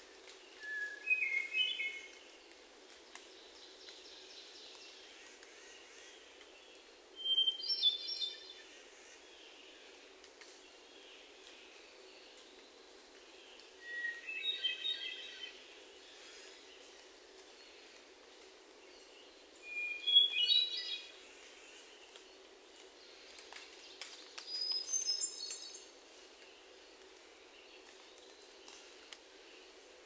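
Hermit thrush singing: five separate phrases about six seconds apart, each opening with one clear held note and breaking into a higher, fluty flourish, each phrase pitched differently from the last.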